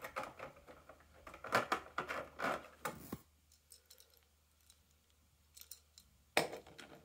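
Packaging of a Hot Wheels toy car being handled while the car is freed from it: plastic and card rustling and crinkling for about three seconds, then a few faint clicks and one short knock about six and a half seconds in.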